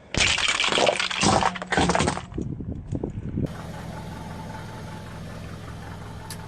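A car tyre rolls over and crushes something brittle: a loud, dense crackling crunch lasting about two seconds. After a cut, a car engine idles steadily.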